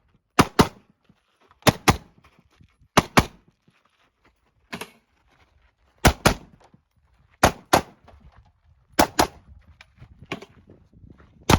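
Semi-automatic rifle firing a timed string of quick double shots, about a pair every second and a half, with two quieter single reports between them.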